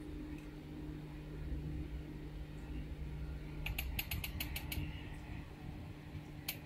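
A quick run of about eight small sharp clicks, then a single click near the end, over a steady low hum.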